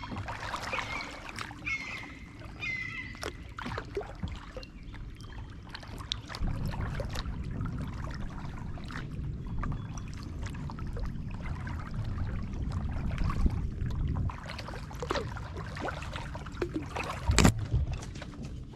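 Canoe being worked along the water, with repeated knocks against the hull and water sounds, and one louder knock near the end.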